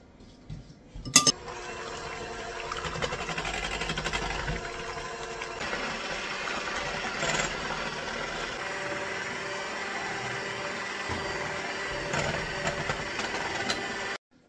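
A sharp clack about a second in, then an electric hand mixer running steadily, its beaters whipping egg whites, sugar and water into a seven-minute icing in a glass bowl over a double boiler. The sound cuts off suddenly near the end.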